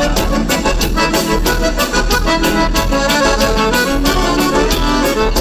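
Gaúcho dance band playing an instrumental passage, the accordion carrying the melody over a steady beat.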